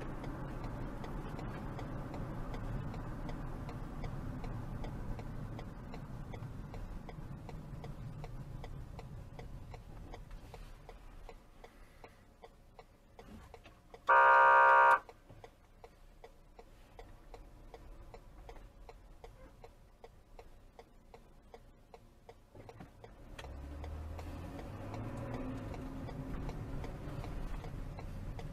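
Low engine and road hum heard from inside a car, with one car horn blast of just under a second about halfway through.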